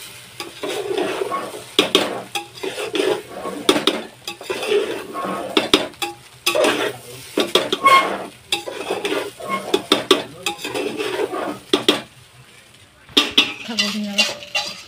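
Metal spatula scraping and clanking against the sides of an aluminium pot as fried rice is stirred and tossed, in quick irregular strokes, with a short pause near the end before the scraping starts again.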